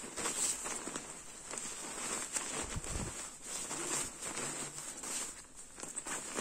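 Coated nylon shell of a goose-down mummy sleeping bag rustling and swishing as hands squeeze and turn it over, with a soft low thump about three seconds in.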